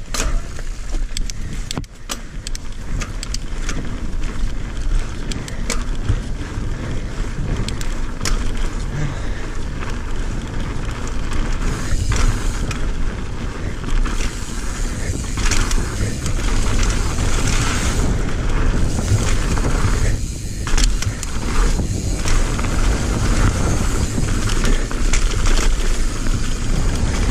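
Mountain bike rolling fast along a dirt trail: a continuous rush of wind over the camera microphone and tyre noise on dirt and gravel, with frequent small clicks and rattles from the bike over bumps.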